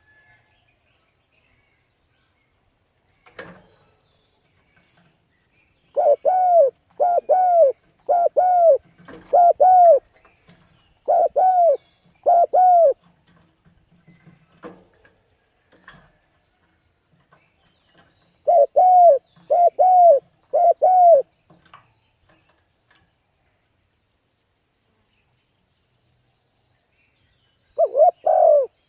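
Spotted dove cooing: short, arched coo notes in phrases, a run of about eight notes a few seconds in, three more a little past the middle, and another near the end, with silent gaps between.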